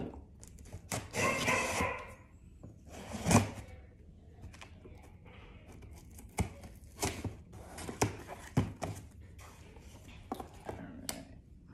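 A knife slitting the packing tape on a cardboard shipping box, a scraping tear lasting about a second, followed by a sharp knock and then scattered light knocks and rustles as the box is opened.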